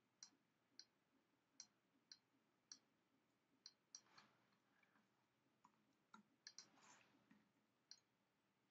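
Faint, irregular clicks of computer keyboard keys, about a dozen scattered over several seconds.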